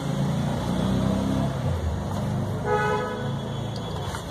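Road traffic running past, with a vehicle horn tooting briefly nearly three seconds in.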